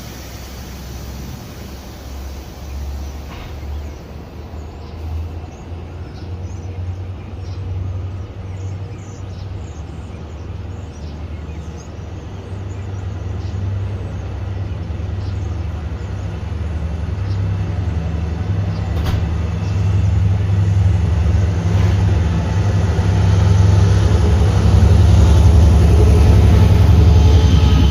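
Train approaching, its deep engine rumble growing steadily louder.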